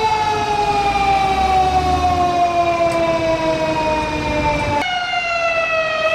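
Tokyo Fire Department pump engine's siren wailing, its pitch sliding slowly down, with the truck's engine rumbling underneath for the first couple of seconds. Just before the end the siren's pitch turns and starts to rise again.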